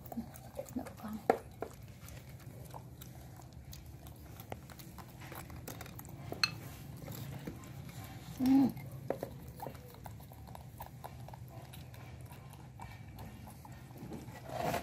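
A spoon clicking and scraping against a cup while baby monkeys are fed, small scattered clicks throughout, over a steady low hum. One short, low voice-like grunt comes about eight and a half seconds in.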